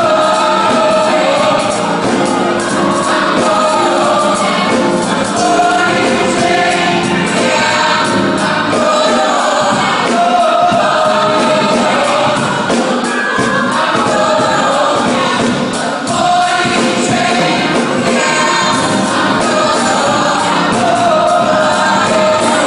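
Gospel choir singing in full voice with a live band of drums, bass guitar and keyboards.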